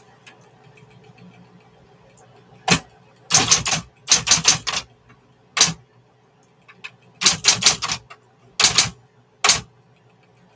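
1960s Smith Corona electric typewriter being typed on: quick bursts of keystrokes, starting nearly three seconds in and separated by short pauses, over a faint steady hum.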